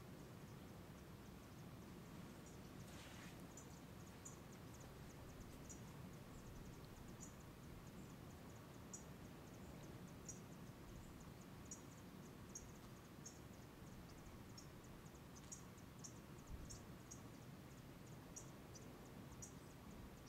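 Near silence: quiet outdoor ambience with a low hiss and faint, short high-pitched chirps scattered irregularly through it, typical of insects.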